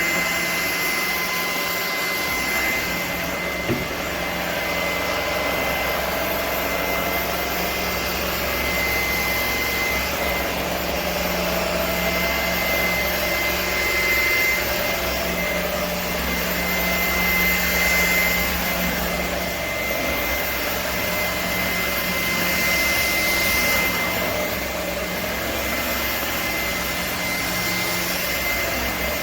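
Shark PowerPro cordless stick vacuum running steadily: an even motor rush with a constant high whine, its level rising and falling a little. A small click about four seconds in.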